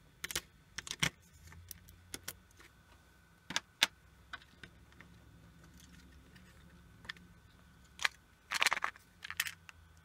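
Sharp clicks and small rattles of tiny plastic and metal parts being handled and pried loose inside an opened pico projector, as its small metal focus gear is worked free. The clicks come singly and in short clusters, with the busiest rattle near the end.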